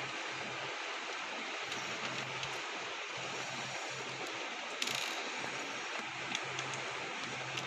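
Small metallic clicks of a Phillips screwdriver working the tiny cover screws on a label printer, over a steady hiss, with one short scrape about five seconds in.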